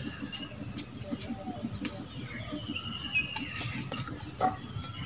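Leaves and thin stems of a chilli plant rustling, with small irregular clicks, as chilli pods are picked off by hand.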